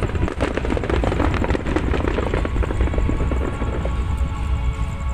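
Fireworks crackling and popping over a continuous low rumble, the crackle thinning out about four seconds in.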